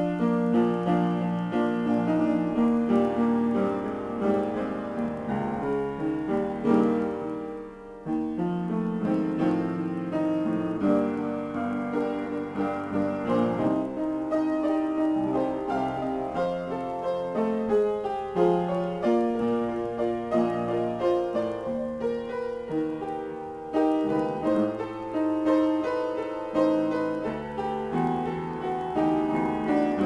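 Solo piano improvisation: a continuous flow of notes and chords, with a brief drop and pause about eight seconds in before the playing picks up again.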